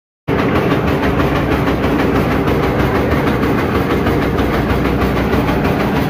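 Chaff cutter running and chopping green fodder: a steady, loud mechanical clatter with a rapid, even chopping rhythm.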